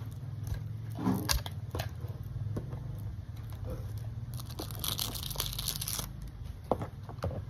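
Small toy packaging crinkling and tearing as it is picked open by hand, with scattered small clicks and a louder rustle about four and a half seconds in.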